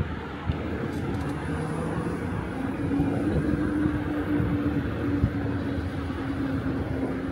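Riding noise on an e-bike: wind rushing over the microphone and road rumble, with a steady low hum from the bike's electric motor.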